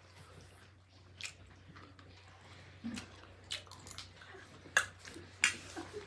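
Close-up eating sounds: chewing and biting, with scattered small wet clicks and two sharper clicks near the end.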